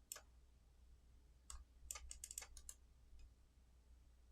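Faint clicking of a computer keyboard under a low steady hum: a single click, then another, then a quick run of clicks about two seconds in.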